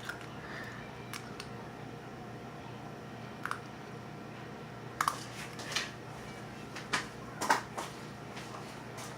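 A handful of light, sharp clicks and taps from egg shells and a bowl being handled, over a steady low hum.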